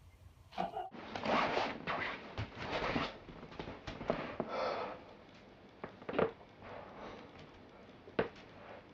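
Rustling and shifting for a few seconds, then two sharp cracks about two seconds apart: joints cracking during a chiropractic adjustment.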